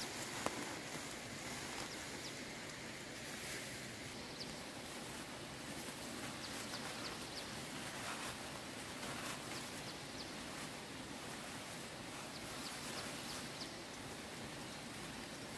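Bundles of freshly picked leafy stems rustling as they are handled, over a steady outdoor hiss. A sharp click comes about half a second in, and faint short high chirps come and go.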